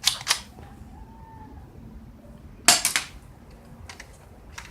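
Colt 1911-replica airsoft pistol firing: two sharp snaps near the start, two more a little under three seconds in, and a faint click near the end.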